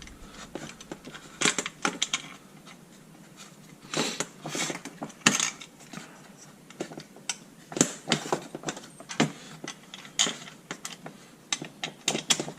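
Irregular metallic clicks and clinks of a hand wrench and hardware as a 1/4-20 lock nut is run down and tightened.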